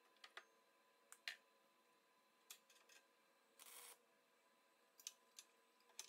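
Faint clicks and taps of steel being handled and clamped, with one short hiss of a wire-feed (MIG) welder's arc a little past the middle as a tack weld is laid on the angle iron.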